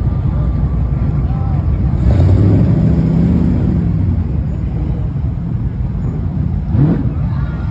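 Classic cars' engines running as they roll slowly past in a parade, one engine coming up strongest a couple of seconds in, with a short rising sound near the end.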